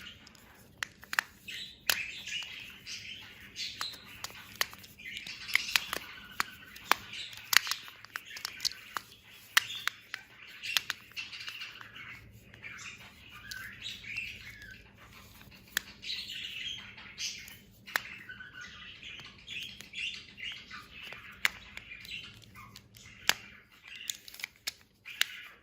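Sharp, irregular clicks of the magnetic origami cube's pieces being snapped and turned, over high, wavering chirping sounds.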